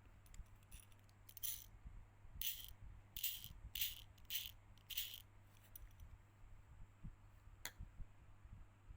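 Small hard parts and tools rattling and scraping in short bursts, about six in a few seconds, then a single sharp click, during hands-on repair work on a smartphone.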